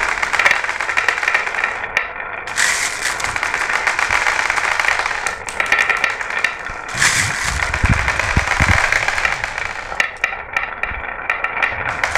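Glass marbles rolling and clattering down a marble run: a continuous rattle of many small clicks, with a few low thumps about seven to nine seconds in.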